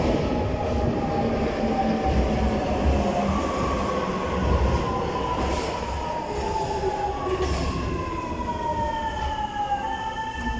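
Paris Métro MF 88 train arriving and slowing along the platform: rumbling and rattling, with a whine that falls in pitch, jumps back up twice, and holds steady near the end.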